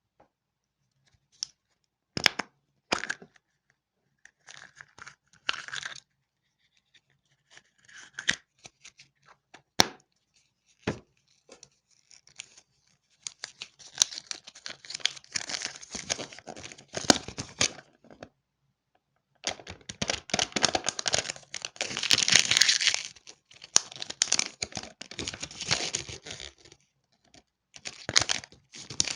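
Candy wrappers being torn open and crinkled by hand. At first there are scattered clicks and short crackles. In the second half come longer spells of steady crackling rustle.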